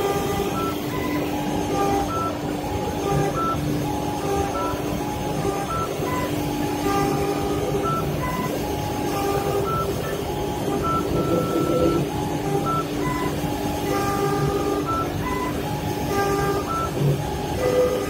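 CNC wood lathe with a brush sanding unit running on a turned wooden spindle: a steady machine hum. Short high beeping tones at changing pitches come and go over it.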